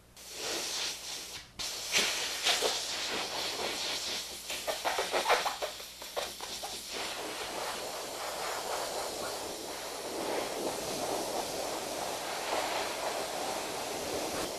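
Compressed air hissing from a blow-gun nozzle over a Canada goose's feathers, blowing them into place and working the skin into position on the mount. It breaks off briefly about a second and a half in, then comes in uneven blasts before settling to a steadier hiss.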